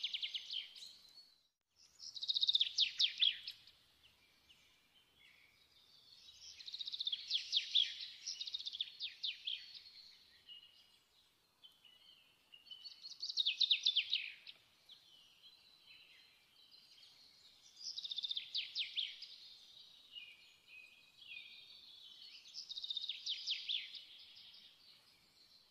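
A songbird singing: six bursts of fast, high trills, one about every four to five seconds, with quieter gaps between them.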